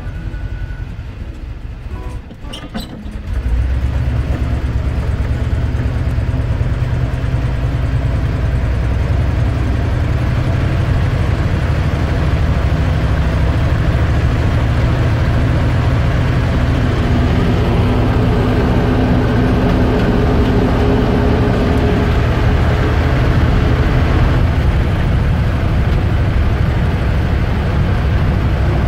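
Motorhome engine and road noise heard from inside the cab while driving, a steady low rumble that grows louder about three seconds in as it gets under way.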